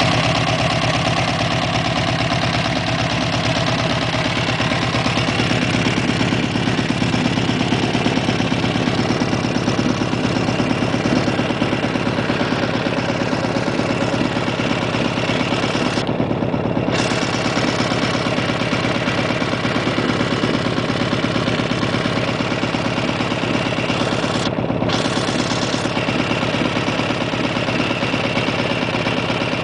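Honda VF1000R's liquid-cooled V-four engine running steadily at idle, with an even beat of firing pulses.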